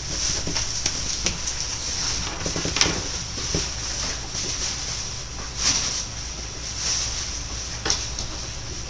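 Steady background hiss and low hum, with a handful of short, scattered clicks.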